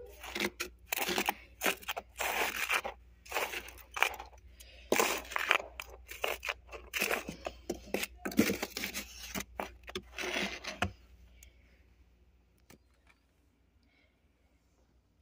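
Freezer frost crunching and scraping close to the microphone in many short, irregular bursts, stopping about eleven seconds in.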